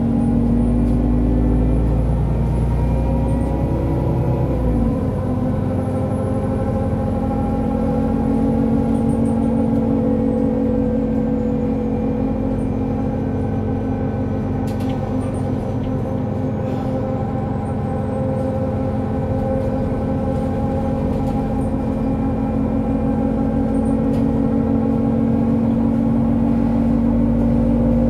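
Solaris Urbino 18 III articulated bus's Euro 6 diesel engine running steadily with a humming drone and a faint high whine. A deep rumble eases off about five seconds in.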